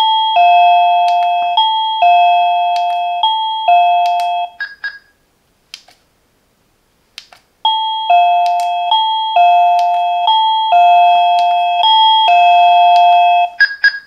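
Reolink plug-in wireless doorbell chime playing its ding-dong melody of alternating high and low tones, twice, with a pause of about three seconds between the runs. Each run ends with a short higher beep.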